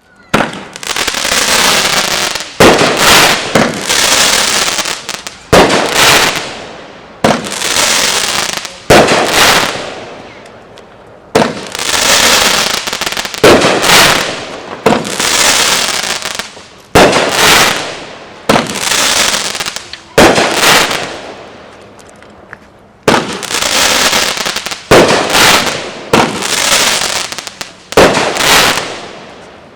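Flashing Fireworks 'Hurricane' 500 g, 12-shot firework cake firing its shots one after another, roughly one every two seconds. Each shot is a sharp bang that trails off over a second or two.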